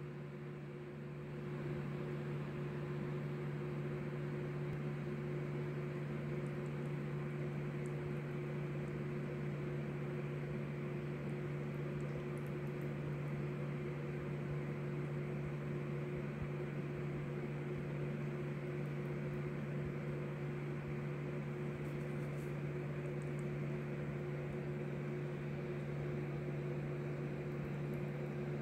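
Steady machine hum with a low drone, getting louder about a second in and then holding level.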